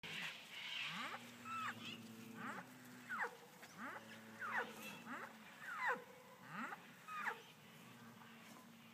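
Animal calls: a string of short, sweeping cries, about one a second, over a few steady low-pitched tones, fading off near the end.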